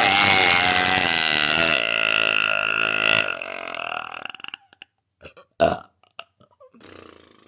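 A woman's long, loud belch with a clear, slightly wavering pitch, lasting about four seconds before it trails off. A few short clicks follow, one louder than the rest.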